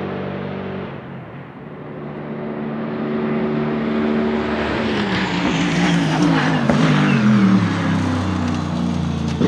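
Bentley Continental GT3 race car's 4.0-litre twin-turbo V8 drawing near and passing close by. Its note falls in steps as it slows and downshifts for a corner, and it is loudest about six to seven seconds in.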